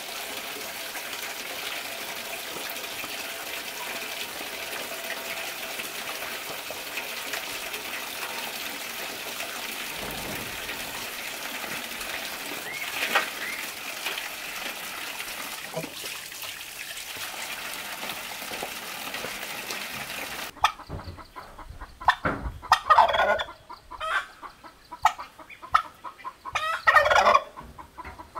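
Water running steadily from an outdoor tap into a metal basin. About two-thirds of the way through, this gives way to a male turkey gobbling twice, loudly.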